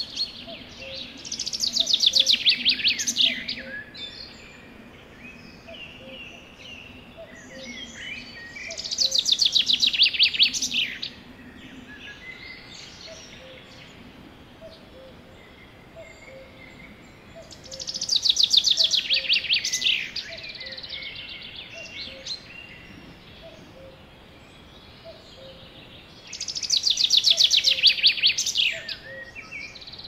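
A songbird singing a fast trilled phrase of about two seconds that falls in pitch, repeated four times about eight seconds apart, with softer calls in between.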